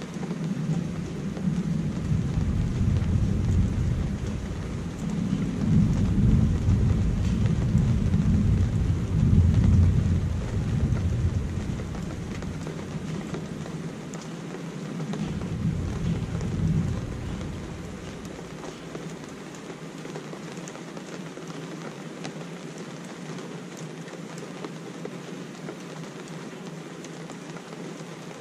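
Steady rain falling during a thunderstorm. Thunder rumbles in long rolls for the first ten seconds or so, loudest about nine to ten seconds in, and once more briefly around fifteen to seventeen seconds in, leaving only the rain hiss after that.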